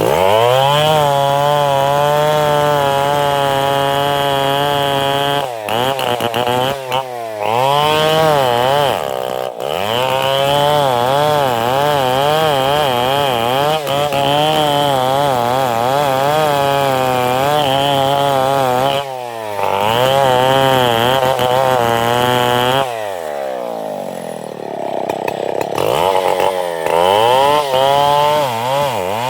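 Two-stroke chainsaw running at high revs while cutting johar wood, its pitch wavering under the load of the cut. It drops back toward idle several times and revs up again, idling for a few seconds shortly before the end before opening up once more.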